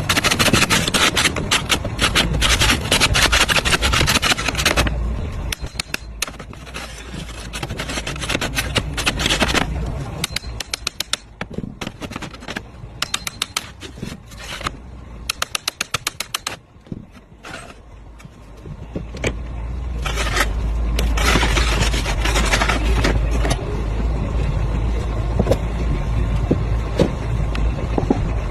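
A steel slate ripper and slate hook worked among roof slates: metal scraping on slate, with runs of rapid taps and knocks as the tool is driven and worked against the slates and nails.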